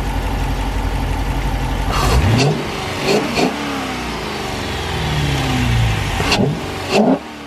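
Car engine running at idle, then revved: a climb about two seconds in, two quick blips a second later, a slow fall, and two more sharp blips near the end before it drops back.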